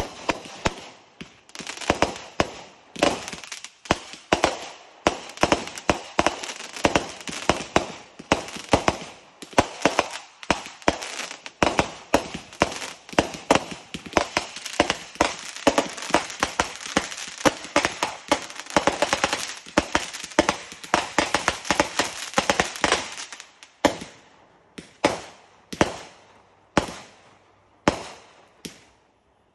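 Multi-shot aerial fireworks firing a rapid barrage of sharp bangs for about twenty-three seconds, then slowing to a few spaced bangs before stopping near the end.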